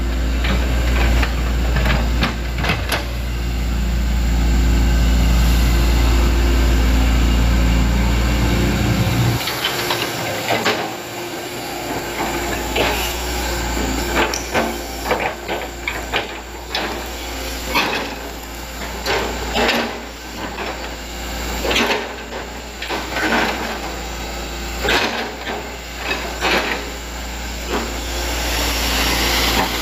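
Hitachi Zaxis 110MF hydraulic excavator running loud and steady, its engine dropping off abruptly about a third of the way in. After that it runs quieter while the bucket digs in the ditch, with irregular clanks and knocks.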